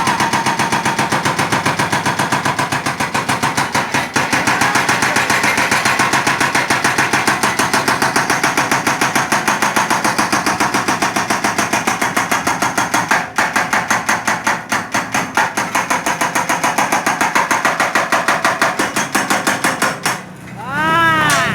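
Excavator-mounted hydraulic breaker hammering concrete in a rapid, steady rattle of blows, with the excavator's engine running under it. The hammering stops about a second before the end, and a short rising-and-falling whine follows.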